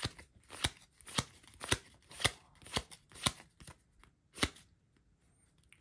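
Digimon trading cards flicked through one at a time in the hands, a sharp card snap about twice a second. The snaps stop about four and a half seconds in.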